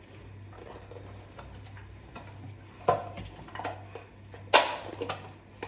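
Kitchen clatter: bowls and utensils knocking and clinking a few separate times, the loudest knock about four and a half seconds in, over a faint steady hum.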